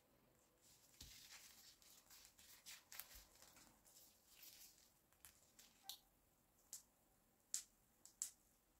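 Faint crinkling of a disposable plastic glove as a hand presses on a split sponge cake, with a few short sharp ticks in the second half.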